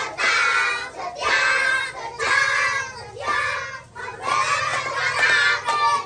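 A group of young children singing together in short phrases of about a second each, with brief breaks between them.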